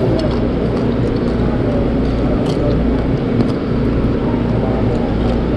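Steady low drone of a ship's machinery, with a few faint clinks of cutlery against a plate.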